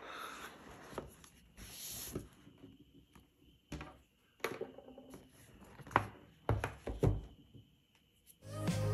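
A cardboard smartphone box handled on a wooden tabletop: sliding and scraping, then a series of light taps and knocks as it is moved and set down. Music comes in near the end.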